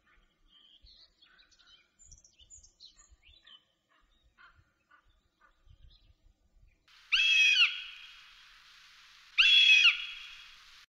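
Two loud cries of a young northern goshawk, about two seconds apart, each lasting about half a second and rising then falling in pitch. Before them, faint twittering of small songbirds.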